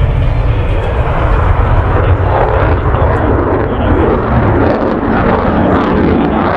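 A fixed-wing aircraft flying at an air show: loud, steady engine noise with a heavy low rumble.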